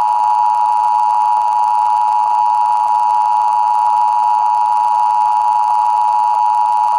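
Emergency Alert System attention signal: a loud, steady two-tone alarm of 853 Hz and 960 Hz sounded together, held unbroken. It is the warning tone that opens an EAS alert, here a Required Monthly Test.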